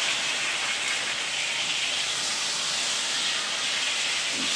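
Whole tilapia frying in hot oil in a pan: a steady sizzle.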